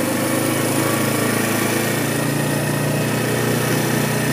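Four-wheeler (ATV) engine running steadily under load as it drags a log on a tow strap.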